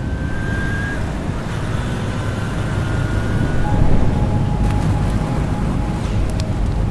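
A Yamaha PG-1's small single-cylinder engine running as the motorcycle rides along the road: a steady low rumble mixed with wind and road noise.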